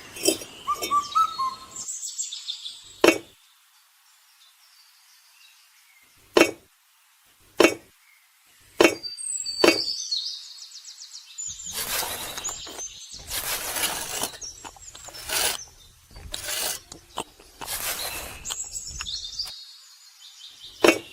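Birds chirping, with a few sharp separate taps or clicks, then a run of rough scraping noises.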